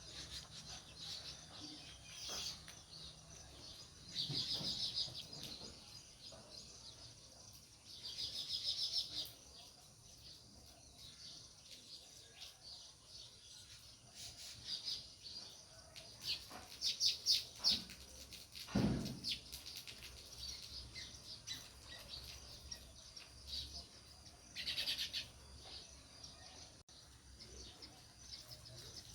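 House sparrows chirping in bursts of rapid chirps every few seconds, with a single low thud about two-thirds of the way through.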